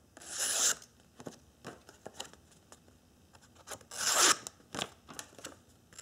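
Custom Willem Steenkamp FLL-13 linerlock flipper knife slicing through a sheet of paper held in the air: two short slicing strokes, one near the start and one about four seconds in, with another starting just at the end, and light paper rustles and crinkles between.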